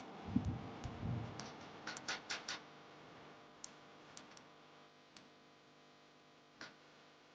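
A few dull knocks, then a quick run of about five sharp clicks about two seconds in, followed by scattered single ticks over a faint steady hum.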